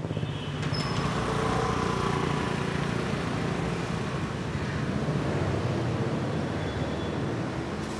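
Street traffic with a motorbike engine running as it rides past.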